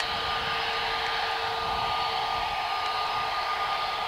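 Airbus A321neo's twin turbofan engines running at taxi thrust: a steady rushing hiss with a steady whine held in it.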